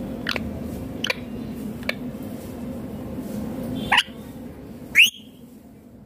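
Rose-ringed (Indian ringneck) parakeet giving short, sharp calls: three quick faint ones in the first two seconds, then two louder ones about four and five seconds in.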